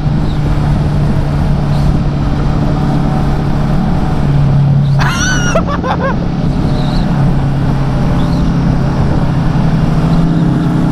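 Kawasaki Vulcan S's parallel-twin engine running steadily at highway speed under heavy wind noise, its note rising briefly about four seconds in. A short high wavering sound cuts through about halfway.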